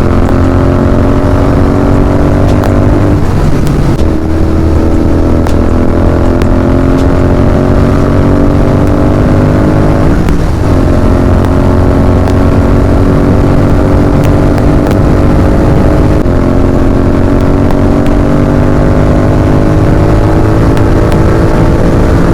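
Royal Enfield Continental GT 650's parallel-twin engine on its stock exhaust, pulling steadily through the gears on the move. Its pitch climbs slowly in each gear and drops at each upshift, three or four times.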